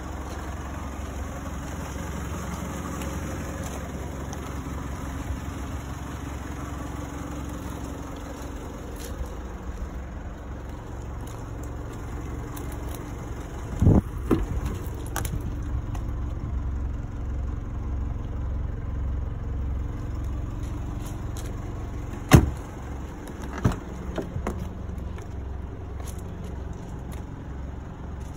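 Nissan Pathfinder idling with a steady low rumble. A pair of loud knocks comes about halfway through, and a sharp click and a smaller knock come later, from handling the car's doors.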